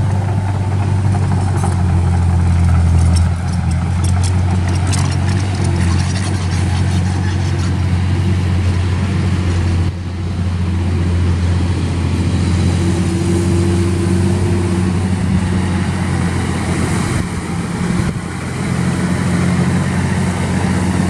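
Heavy diesel engines of earthmoving equipment, an excavator and a loaded six-wheel dump truck, running steadily with a deep, even drone.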